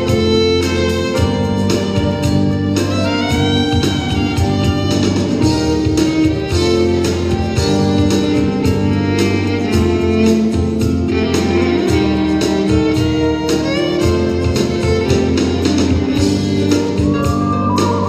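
Celtic–Native American fusion band music: a fiddle melody with sliding notes over a steady drum beat and a sustained bass.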